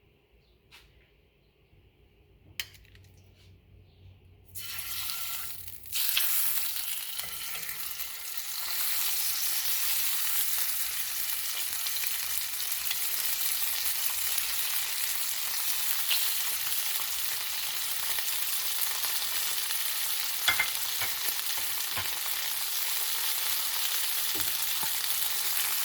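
A boneless, skinless chicken thigh frying in hot oil in a pan. After a quiet start with one sharp click, the sizzle starts about five seconds in, jumps louder a moment later and then runs steadily, with a few small pops.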